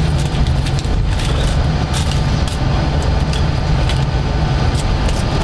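Steady low drone of a city bus engine and road noise heard from inside the passenger cabin, with a few sharp clicks and rattles scattered through it.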